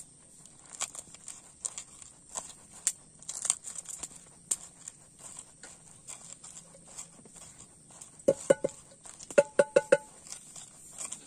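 Wooden pestle crushing raw shallots, garlic and chilies in a wooden mortar (Indonesian cobek and ulekan): scattered crunches and knocks. Two quick runs of loud, ringing wooden knocks come about eight and nine and a half seconds in.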